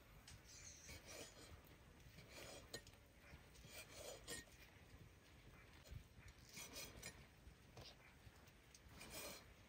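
Faint, intermittent scraping and rubbing, a few short strokes every second or so, with a light clink now and then.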